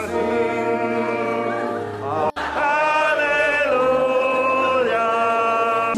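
Background music: a song with long held sung notes, cutting out for an instant a little over two seconds in, then carrying on.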